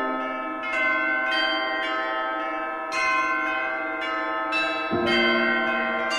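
Bells ringing for the blessing with the Blessed Sacrament, struck every second or two, their tones ringing on and overlapping.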